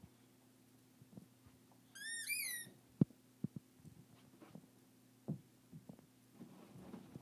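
Boxer puppy giving a short, high-pitched whine about two seconds in, a few quick squeaky notes that rise and fall, amid soft knocks and rustles of her moving on the bed. A single sharp tap comes about a second after the whine.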